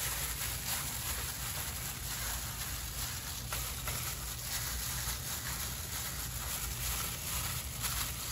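Hands in thin plastic gloves rubbing oily, seasoned raw chicken drumsticks in a glass dish: soft wet squishing and glove crinkling, over a steady low rumble.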